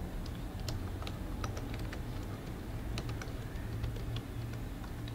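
Scattered light clicks of computer input (keyboard and mouse) at irregular intervals, over a steady low hum.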